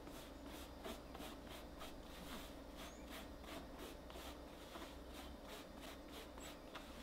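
Spoon scraping powdered sugar through a fine-mesh metal sieve: soft, even scratchy strokes, about three a second.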